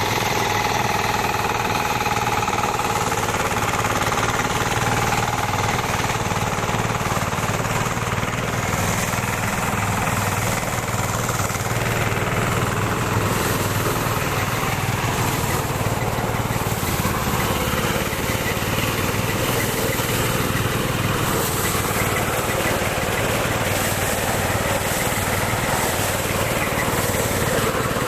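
Harvesting machinery's engine running steadily, with a fast, dense rattle.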